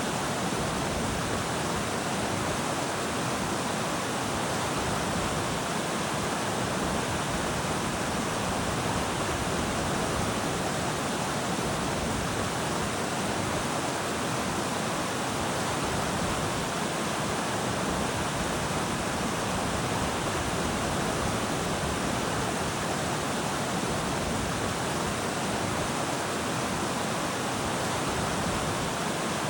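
Steady, unbroken rush of a large waterfall, about 55 m high, pouring over columnar-jointed basalt.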